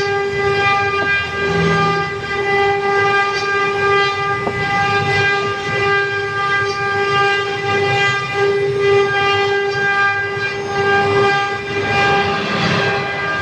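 CNC router spindle running at a steady high whine, with cutting and rattling noise underneath.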